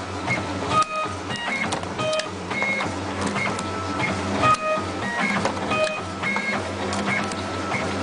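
Automatic wire cutting and stripping machine running through its cycle: stepper-motor feed rollers and blade drive whine in short bursts at several pitches, with sharp clicks as the blades cut and strip, repeating about once a second over a steady motor hum.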